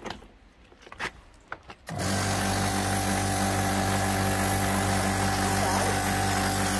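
Pressure washer starting up about two seconds in and running steadily: the motor and pump hum with the hiss of the water jet spraying across a concrete balcony floor.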